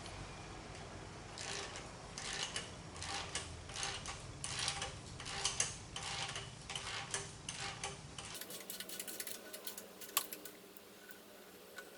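A run of irregular mechanical clicks and ticks, several a second, stops abruptly at a cut about eight seconds in. A few scattered clicks follow over a quieter background.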